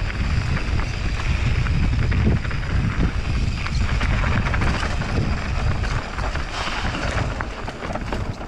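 Wind buffeting the rider's microphone over a mountain bike rolling on a dirt trail, with many small clicks and rattles.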